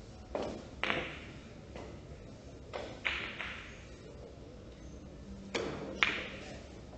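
Billiard balls clicking on neighbouring tables in an echoing hall: three pairs of sharp knocks, a duller one followed by a brighter click, about a second in, around three seconds and near the end.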